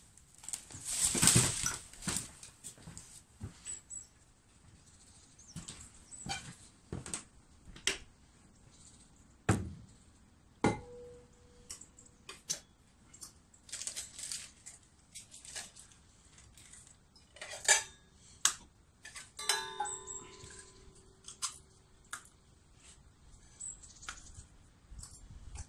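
Irregular clinks and knocks of metal dishes and utensils being handled. One piece rings briefly about ten seconds in, and another rings for a few seconds near twenty seconds in.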